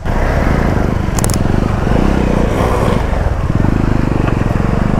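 Motorcycle engine running steadily as the bike is ridden, with a rushing noise over it.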